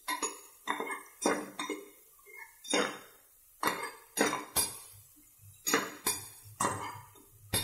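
A metal ladle scraping and clinking against the bottom and sides of a metal pressure-cooker pot in short, irregular strokes, about two a second, as it stirs onion, tomato and garlic frying in oil.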